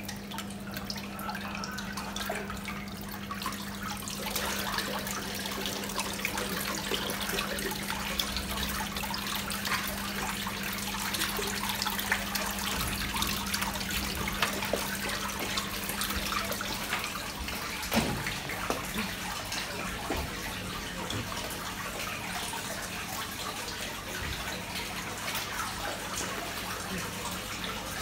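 Water splashing and dripping in a shallow koi pond as hands scoop and stir in it, over a steady low hum. A single sharp knock about eighteen seconds in.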